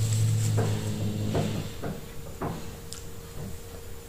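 Hands tearing a lump of plantain fufu from a plastic-wrapped mound: a handful of short soft crackles and knocks in the first two and a half seconds. A steady low hum runs under the first second and a half.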